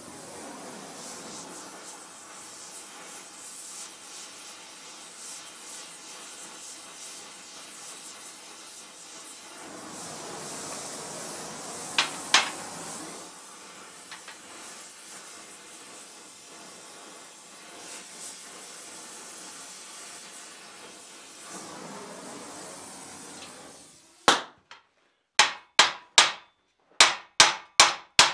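Oxy-fuel torch flame hissing steadily while it heats a steel tenon end, with a couple of sharp knocks about halfway. The torch cuts off near the end, and quick hammer blows on steel follow, about two to three a second, peening the hot tenon end down into a rivet head.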